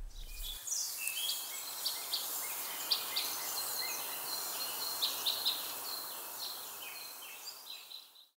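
Outdoor ambience of many small birds chirping over a steady hiss, fading out near the end.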